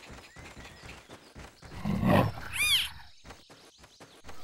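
Cartoon clouded leopard calls: a short low growl about two seconds in, then a brief high cry that rises and falls.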